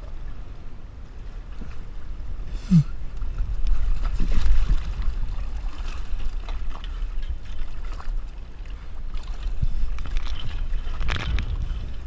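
Wind buffeting the microphone and water sloshing and splashing around a capsized Sunfish sailboat as it is righted by its daggerboard, louder as the hull and sail come up out of the water. There is a brief sharp sound about three seconds in.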